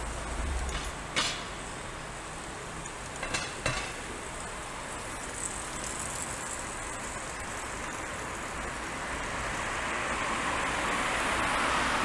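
Outdoor street ambience of passing road traffic: a steady hiss that swells over the last few seconds as a vehicle goes by, with a few sharp clicks about a second in and again around three and a half seconds in.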